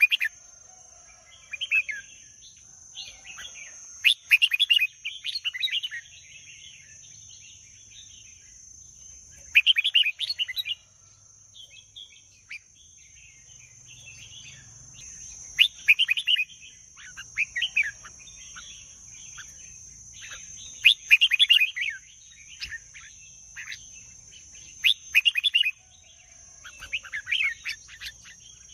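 Red-whiskered bulbul singing: short, bright warbled phrases, each about a second long, repeated every one to four seconds. A faint steady high-pitched whine runs underneath.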